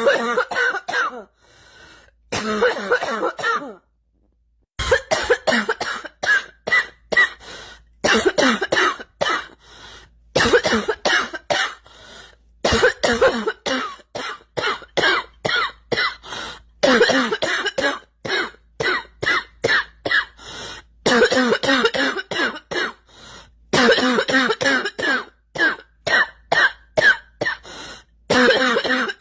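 A girl coughing over and over in runs of short, sharp coughs, with brief pauses between the fits.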